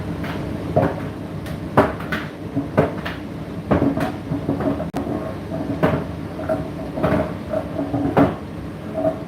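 Indesit IDC8T3 8 kg condenser tumble dryer running, with the load tumbling in the turning drum: irregular knocks and thuds, about one or two a second, over the machine's steady hum.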